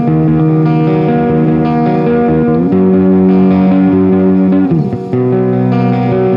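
Electric guitar with Ibanez STD C1/C2 humbucker pickups, tuned to drop C, played on a clean tone: held chords and notes with slides between them, and a brief drop in volume near the end.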